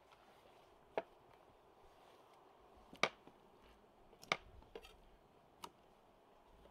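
Chef's knife cutting scored cuttlefish into pieces on a bamboo cutting board: a few sharp knocks of the blade on the wood, spaced irregularly.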